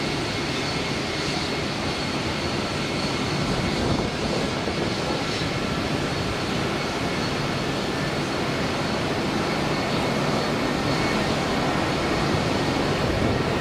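Jet engines of an Airbus A320 airliner running as it rolls along the runway: a steady, even rush with a faint high whine held at one pitch.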